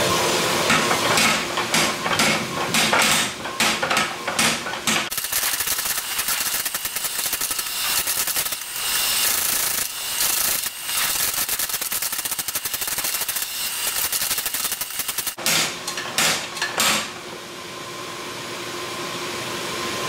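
Mechanical power hammer pounding red-hot steel held between its dies. Spaced blows for the first few seconds, then a fast continuous run of blows for about ten seconds, a few more spaced blows, and near the end the motor runs on without striking.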